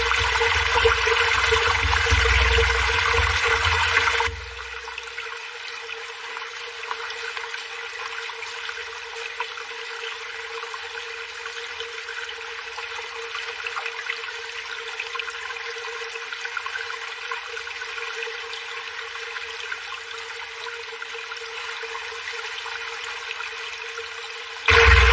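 Running water, loud with a low rumble for about four seconds, then dropping suddenly to a quieter steady flow; a faint steady hum runs under it throughout.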